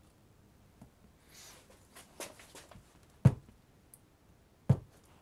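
A sharp knife worked against the sidewall of an unmounted motorcycle tyre: light scraping and a few clicks, then two heavy thumps about a second and a half apart as the blade is jabbed into the rubber. The tyre resists the blade.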